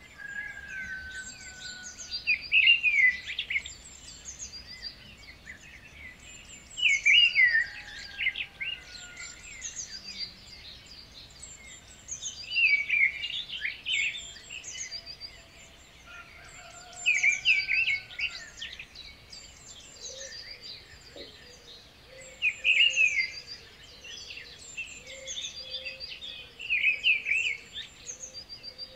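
Birds singing and chirping, with a louder burst of twittering about every five seconds over a background of softer high chirps.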